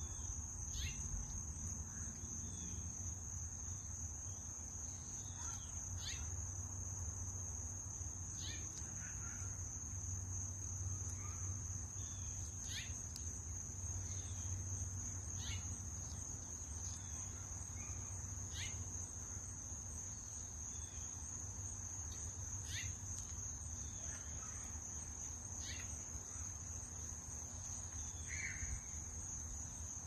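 Insects, such as crickets, trilling in one steady high-pitched drone, with short high chirps every couple of seconds and a low steady rumble underneath.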